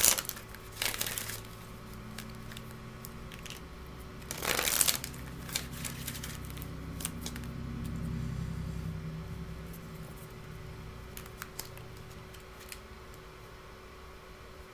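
A deck of reading cards being shuffled by hand. Rustling riffles come at the start, about a second in and again around five seconds in, followed by scattered light clicks and taps of the cards, over a faint low hum.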